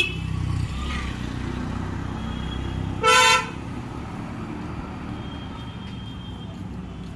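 A vehicle horn gives one short toot about three seconds in, over the low rumble of passing road traffic.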